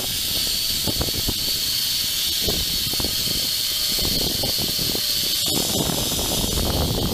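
Zipline trolley pulleys running fast along the steel cable: a steady high whine with hiss, over wind buffeting the microphone.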